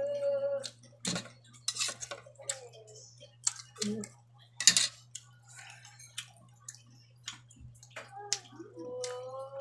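A person eating: irregular sharp clicks and crunches of chewing and utensils, over a steady low hum.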